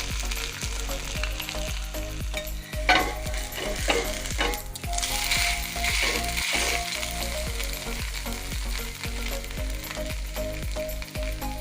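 Dosa batter sizzling in ghee on a hot griddle, a steady frying hiss, with a few sharp taps about three to five seconds in.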